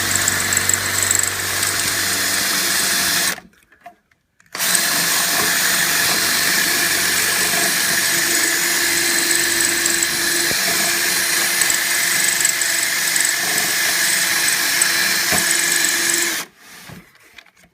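Electric drill running on high speed with the bit boring into the head of a stripped hex screw to drill it off. It stops briefly about three seconds in, starts again a second later and runs steadily until it cuts off near the end.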